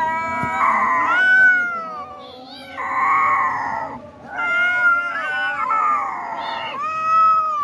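Kittens yowling while play-fighting: three long, wavering cat calls with short breaks between them.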